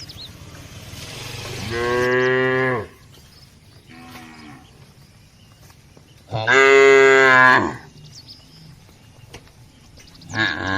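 Cows mooing in turn: a long moo about two seconds in, a faint short call after it, a louder long moo about halfway through, and another moo starting near the end.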